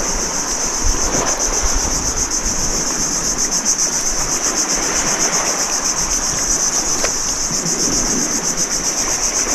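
A steady, high-pitched insect chorus trilling with a fast pulse, over a soft wash of wind and water.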